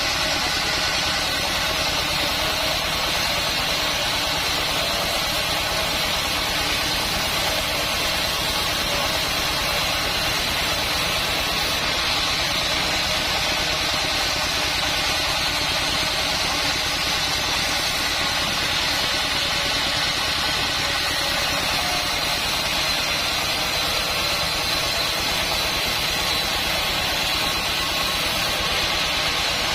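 Band sawmill machinery running steadily: an even engine-like drone with a faint high whine held throughout, with no sudden knocks or changes.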